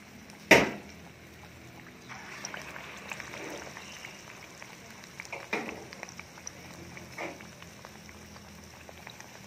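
Batter-coated banana fritters (maruya) sizzling in hot oil, a steady hiss that grows fuller about two seconds in as a second piece goes in, with a few small pops. A single sharp knock about half a second in is the loudest sound.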